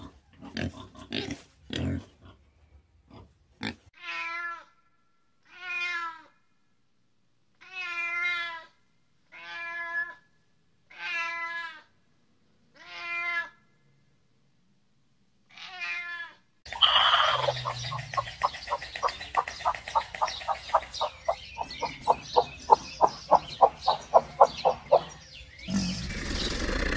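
Pigs grunting briefly, then a domestic cat meowing seven times in separate calls a second or two apart. After that, about two-thirds of the way in, a louder sound of rapid even pulses over a hiss, from an animal that can't be named.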